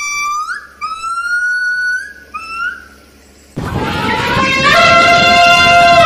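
A few high, whistle-like calls, each rising in pitch, in the first half. Then, about three and a half seconds in, a goat starts a loud, raspy, drawn-out bleat.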